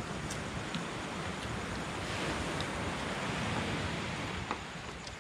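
Sea waves washing on the shore: a steady rush that swells a little in the middle.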